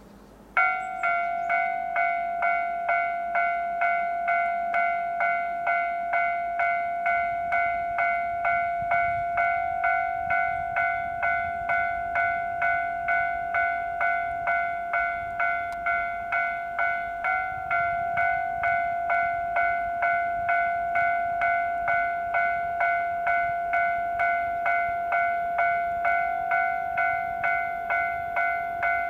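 Railway warning bell ringing in an even electronic ding, about two strokes a second, starting about half a second in: the alarm that a train is approaching.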